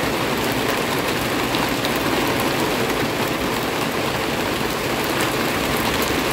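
Heavy rain pouring steadily onto leafy plants and hanging pots: a dense, even hiss with scattered drop taps.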